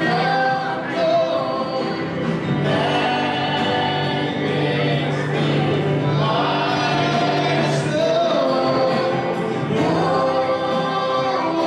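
Gospel worship music: several voices singing together over an instrumental backing with drums, held chords and even loudness throughout.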